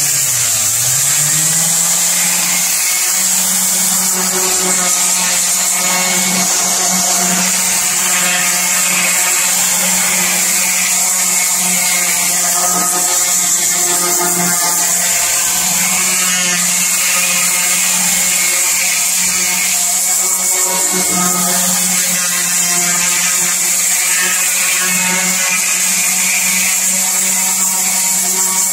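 Electric random orbital sander running against the painted cast-iron underside of an old claw-foot tub, grinding off rust and flaking paint. The motor winds up to speed in the first second, then runs at a steady pitch under a high hiss.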